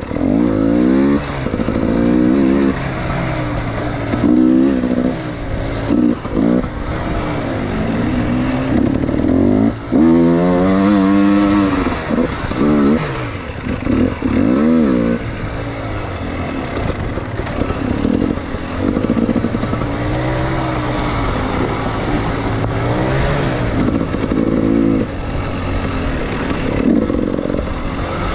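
Enduro motorcycle engine revving up and down under constant throttle changes while riding a rough trail, with frequent short blips and drops in revs; the highest rising rev comes about ten seconds in.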